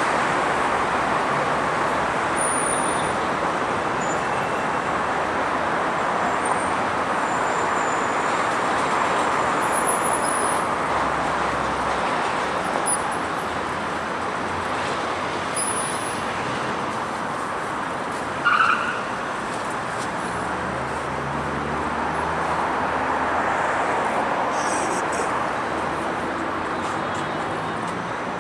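Steady road traffic on a wide city avenue: an even rush of car engines and tyres, with one brief, louder sharp sound about two-thirds of the way in.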